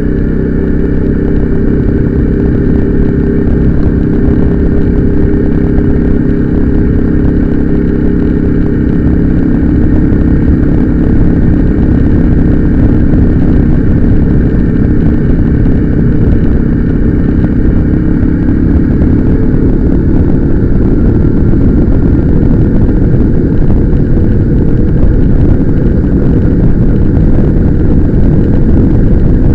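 Motorcycle engine running steadily while riding, its pitch drifting slightly, over a constant low rushing noise.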